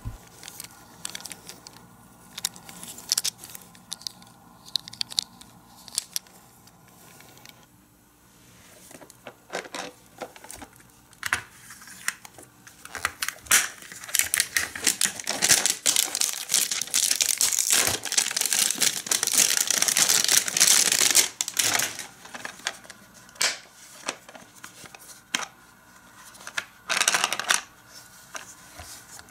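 Plastic wrap crinkling and tearing as it is pulled off a hard plastic toy case, densest through the middle stretch. Scattered clicks and taps of the plastic case come before and after it.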